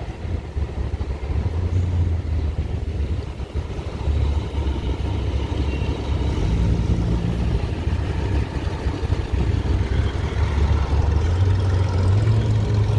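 Classic cars driving past with a low engine rumble that swells about four seconds in and again near the end.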